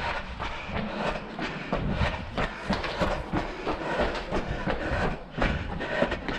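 Running footsteps on a concrete floor, picked up by a head-mounted camera: a steady, quick rhythm of footfalls.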